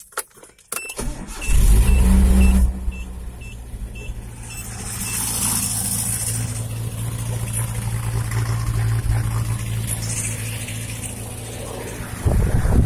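Nissan pickup engine started with the key: a few clicks, then it catches about a second in with a loud burst of revs and settles to a steady idle. A high warning chime beeps about twice a second for the first few seconds. A brief loud low rush comes near the end.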